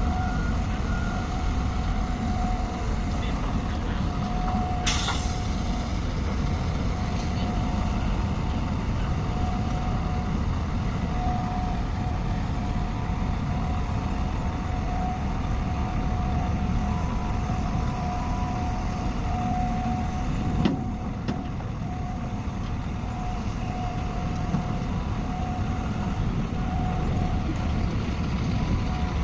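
Heavy earthmoving machinery running steadily with a low engine rumble, with a short, sharp hiss about five seconds in.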